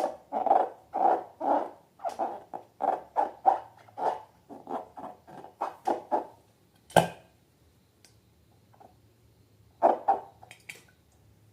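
Slime being squished and kneaded by hand: a quick run of short squelches, about three a second, that stops about six seconds in. A sharp click comes about a second later, and a few more squelches near the end.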